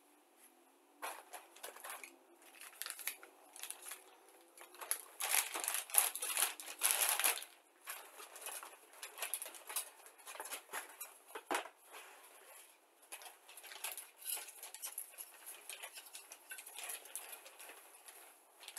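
Thin plastic sprue bag crinkling and rustling as it is handled, in irregular bursts, with a dense, loud stretch about five to seven seconds in.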